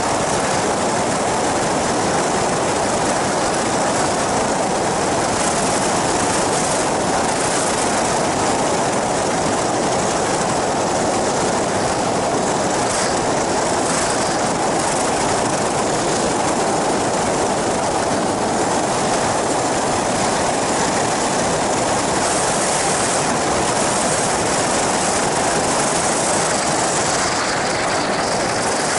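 Engine and pusher propeller of an ultralight flying boat running steadily under power, mixed with a constant rush of wind over the camera.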